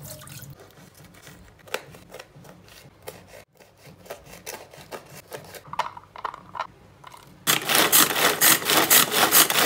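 Knife tapping through chillies on a wooden chopping board in scattered clicks. Then, about three-quarters of the way through, a pull-string manual food chopper is yanked again and again: a loud rapid rasping whir as its blades chop garlic and chillies in the bowl.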